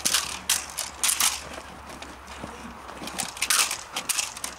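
Belgian Malinois gripping a bite pad and struggling against the decoy: irregular short scuffs and scrapes of paws and shoes on gravelly dirt as the dog braces and tugs.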